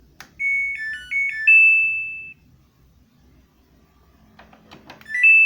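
Samsung washing machine's control panel playing its electronic start-up tune: a short melody of beeps that ends on a held note. A few faint button clicks follow, then another short rising beep ending on a held note as a button is pressed.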